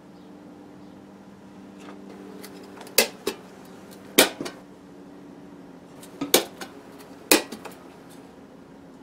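Tin snips working at the rim of an empty steel gallon paint can: sharp metallic snaps and clanks in four short clusters, the first about three seconds in, over a faint low steady hum.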